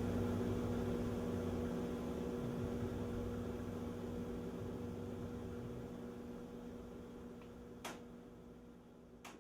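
Front-load washing machine giving a steady electrical hum that fades gradually once the spin cycle has finished, with two short clicks near the end.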